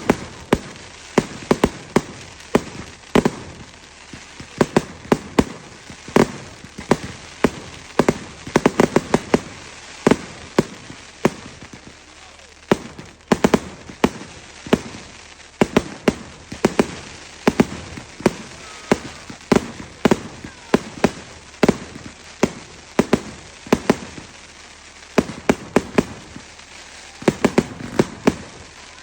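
Fireworks going off: a steady run of sharp, irregular bangs and crackles, often several a second.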